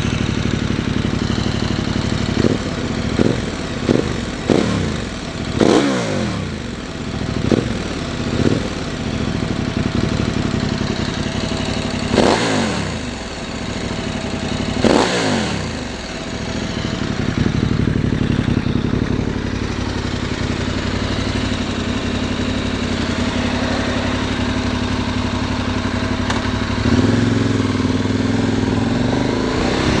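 KTM 1190 Adventure R's 1195 cc V-twin breathing through a Mivv Speed Black slip-on muffler. It idles and is blipped hard about nine times, short quick blips first and then longer ones up toward 7000–8000 rpm, each rise falling back to idle. Near the end the engine note rises and holds steady.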